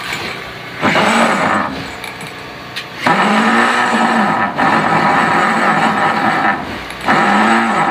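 A motor-driven machine running in four bursts of one to two seconds each; its pitch climbs and then sags within each burst, as if under changing load.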